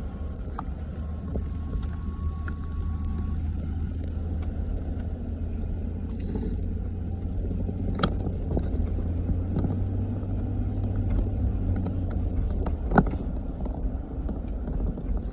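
Inside the cab of a GM full-size pickup being driven: steady low engine and road drone, which drops a little about twelve seconds in. A few sharp clicks, the loudest about thirteen seconds in.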